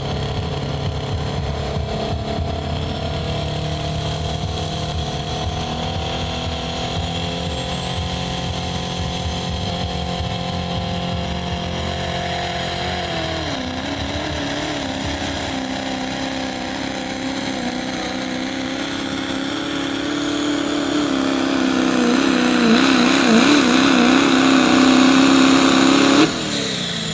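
Turbo-diesel pickup truck engine under full throttle, pulling a weight-transfer sled in a 2.6-inch-turbo-class truck pull. The engine pitch drops about halfway through, then the engine grows louder with a wavering pitch, and the sound cuts off suddenly near the end as the pull finishes.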